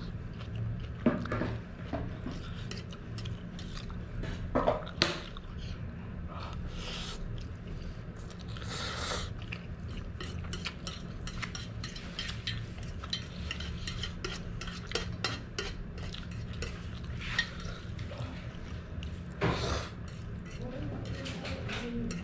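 A metal fork clinking and scraping against a metal pan as noodles are picked up and eaten, with a few slurps, over a steady low hum.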